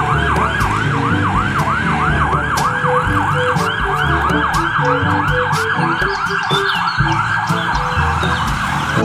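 Ambulance siren in a fast yelp, each wail rising and falling about three times a second.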